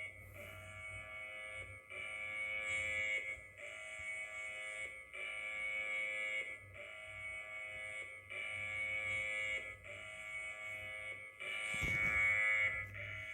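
Emergency alert alarm: a harsh buzzing tone of several pitches at once, sounding in repeated blasts of about one and a half seconds with short breaks between them.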